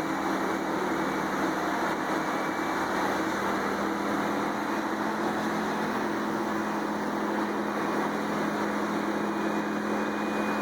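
Large tractor-driven wood chipper running steadily, a continuous even engine and machine hum with no distinct strikes or changes.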